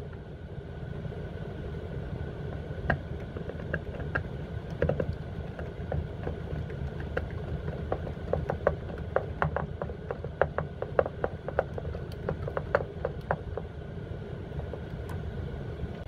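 Hand screwdriver driving a screw into a drawer catch, giving irregular small clicks and ticks as the bit turns in the screw head, thickest through the middle stretch. A steady low rumble runs underneath.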